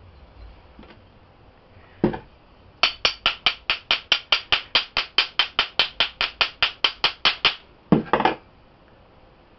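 A stainless steel bath bomb mold being tapped rapidly and evenly, about five sharp metallic taps a second for some five seconds. A single knock comes just before the run and another just after it.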